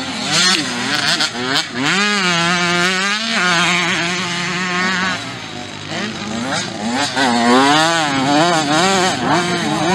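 Motocross bike engines revving hard, the pitch rising and falling repeatedly as riders work the throttle through the corners. A few sharp cracks come in the first couple of seconds.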